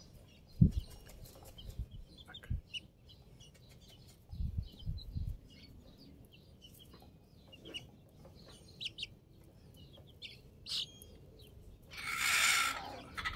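Gamefowl chicks of a Sumatra line peeping in short, scattered chirps while being handled for leg banding, with a few dull knocks from handling and a burst of rustling near the end.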